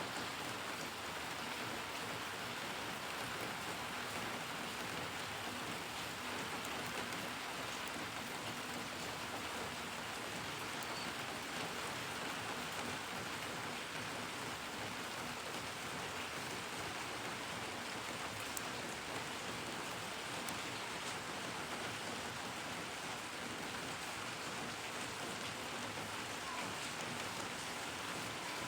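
Steady rain falling and pattering on surfaces, an even hiss with scattered faint drop ticks.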